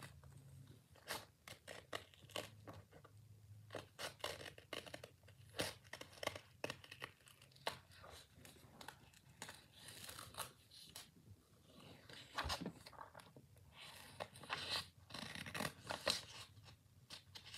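Scissors cutting paper, a faint series of short, irregularly spaced snips.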